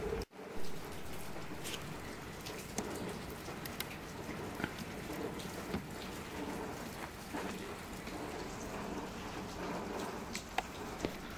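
A steady, rain-like hiss with scattered sharp ticks, broken by a brief dropout right at the start; a few louder clicks come near the end.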